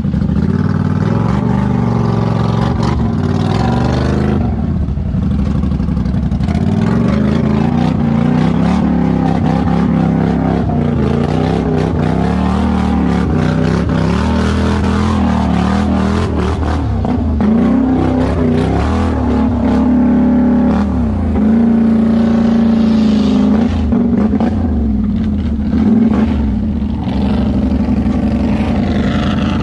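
Polaris Sportsman 850 High Lifter ATV engine running hard through mud and water, the revs rising and falling with the throttle.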